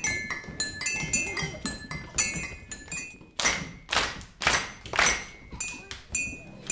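Ceramic mugs and spoons clinking in a rhythmic percussion pattern, short bright ringing knocks several times a second. About halfway through comes a run of louder, noisier strokes.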